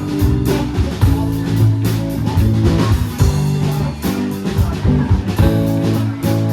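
Live band playing a blues number: guitar over a drum kit, with a steady beat of drum hits.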